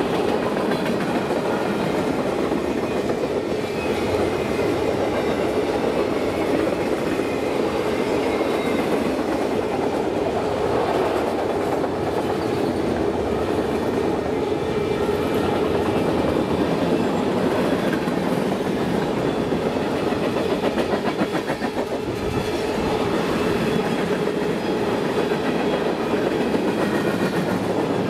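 A freight train's cars rolling steadily past close by: a constant rumble of steel wheels on rail with clickety-clack over the rail joints.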